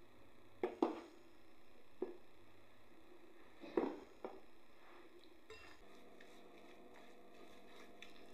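A spoon knocking and clinking against a plastic food tub as breadcrumbs are scooped out, a handful of sharp knocks in the first half, then a quieter stretch as a spatula stirs the mixture in a glass bowl.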